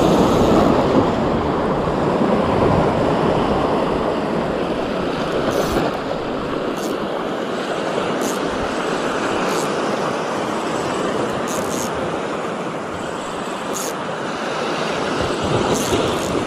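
Small waves washing onto the beach: a steady rushing surf noise, with a few faint, sharp high clicks scattered through it.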